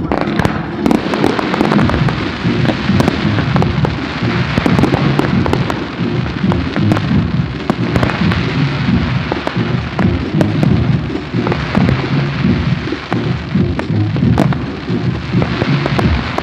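Fireworks going off in quick succession: a dense, continuous run of bangs and crackles from shells and fountains fired one after another.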